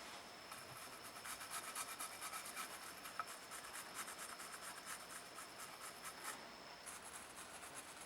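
Quick rubbing or scraping strokes, many to the second, on a ceramic piece being worked by hand. They start about half a second in and ease off about six seconds in.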